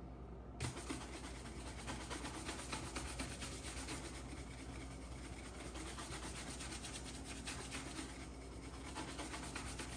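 Horsehair shoe brush rubbed in quick repeated strokes over a leather shoe, starting about half a second in: buffing shoe cream into the leather.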